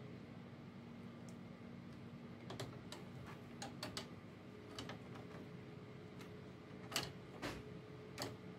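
Scattered small plastic clicks and taps as the scanning bar of a Xerox WorkCentre 3335/3345 scanner is handled and seated in its carriage during reassembly, the sharpest clicks about seven seconds in. A faint steady hum runs underneath.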